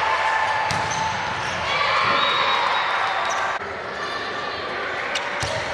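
Volleyball play on a hardwood court in a large gym: players' voices calling and chattering, with a few sharp knocks of the ball being struck or hitting the floor. The sound changes abruptly about two-thirds of the way through, at an edit.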